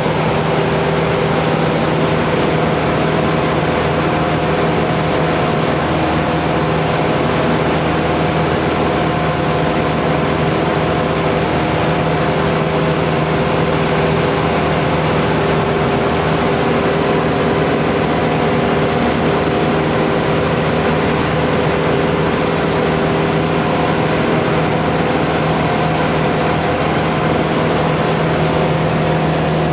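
Steady drone of a 1974 Cessna 177B Cardinal's four-cylinder Lycoming engine and propeller, running at constant power in flight, heard from inside the cockpit with wind and airframe noise. The pitch and loudness hold unchanged throughout.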